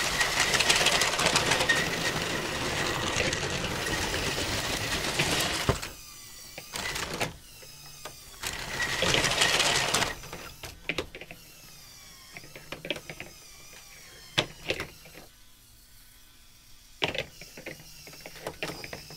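Electric toy motors and plastic gearing of a motorized LEGO AT-AT and a 1974 LEGO 725 12-volt train whirring and rattling. The noise is loud for about the first six seconds, drops out, and comes back briefly about nine seconds in. After that come scattered plastic clicks and knocks.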